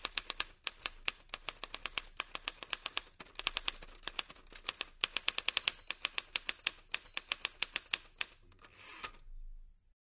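Typewriter keys clacking in quick, uneven runs of strikes, several a second, as a typing sound effect; the strikes stop shortly before the end, followed by a brief soft rasp.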